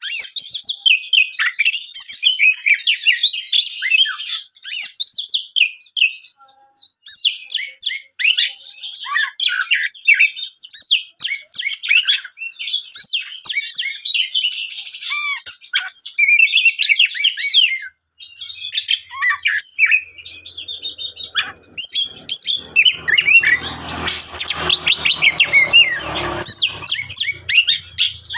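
Oriental magpie-robin singing a long, fast, varied song of sharp chirps, whistles and trills, with a short pause about two-thirds of the way through. Near the end a low hum joins underneath the song for several seconds.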